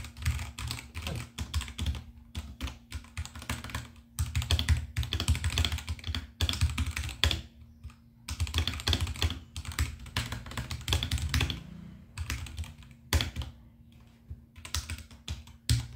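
Typing on a Royal Kludge RK84 V2 mechanical keyboard with Gateron Yellow linear switches: quick runs of keystrokes broken by a few short pauses.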